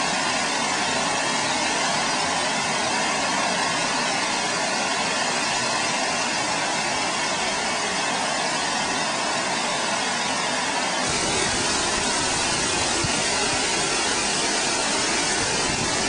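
Water pouring over a dam spillway and crashing onto rocks, a steady even rush. About eleven seconds in it cuts to a closer, fuller rush with much more low rumble.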